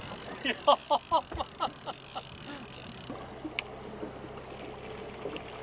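Outboard motor running steadily at trolling speed with water washing along the hull. Near the start, a quick run of short squeaky sounds, about five a second.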